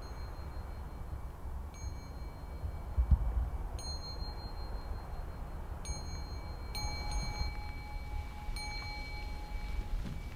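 A small high-pitched bell struck about five times at uneven intervals, each stroke left to ring on at the same pitch; a lower ringing tone joins about two-thirds of the way through. A low rumble runs underneath, with a sharp low thump about three seconds in.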